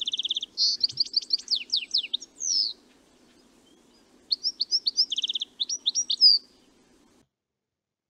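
European goldfinch giving its twittering flight calls: two bursts of quick high chirps with falling slurs and short buzzy notes, the second starting about four seconds in.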